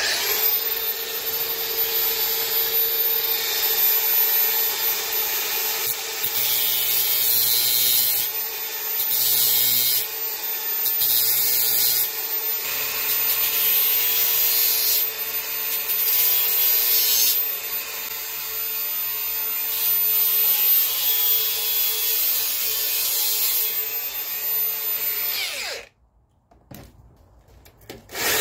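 Cordless angle grinder with a thin 1 mm cut-off disc running at a steady whine, grinding the tip of a twist drill bit that a cordless drill spins against it. The grinding hiss swells several times as the disc bears on the bit, with the drill's motor whirring in the same stretches. Both stop suddenly about two seconds before the end.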